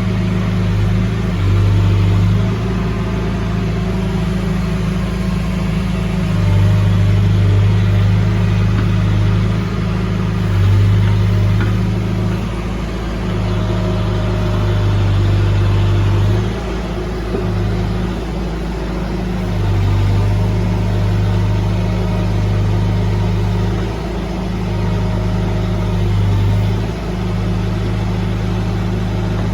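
Diesel engine of working heavy equipment running steadily, its low note swelling and easing every few seconds as the load changes.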